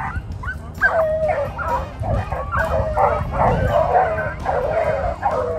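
A pack of rabbit hounds baying and yelping, several voices overlapping without a break: the dogs in full cry on a rabbit's trail through the brush.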